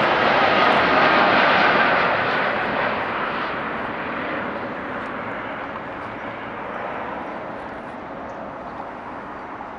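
Boeing 787-9's twin GEnx turbofans at climb-out thrust as the jet flies away: a loud jet rush with a faint whine early on, fading steadily, the higher part dying away first.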